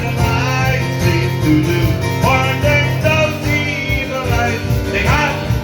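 Live song: a singer's voice over strummed acoustic guitar accompaniment.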